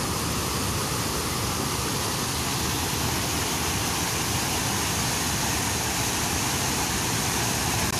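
Steady rush of falling water from a waterfall, even and unbroken.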